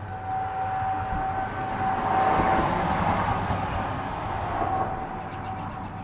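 Outdoor warning siren sounding a steady tone for a test, its strength rising and falling slightly. Over it, a vehicle passes, its noise swelling to a peak about halfway through and fading away near the end.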